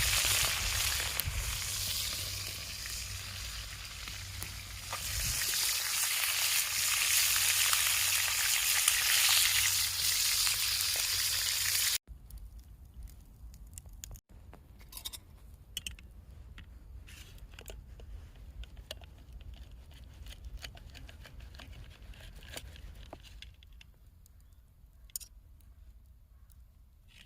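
Food sizzling in a hot pan over a campfire, a steady hiss that swells louder about halfway through. It cuts off suddenly, leaving a much quieter stretch with scattered light clicks and taps.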